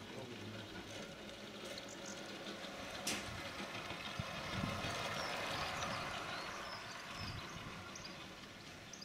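Playmobil garden-railway train running past on the track: a steady rolling rattle that builds as it comes closer and fades as it goes by, with one sharp click about three seconds in.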